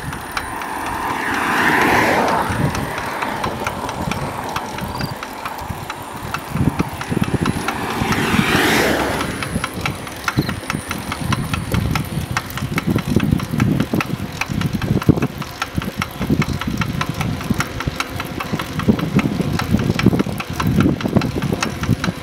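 Engine running with a rapid knocking throughout, an abnormal noise from the crank. It is revved up and back down twice, about two seconds in and again around nine seconds.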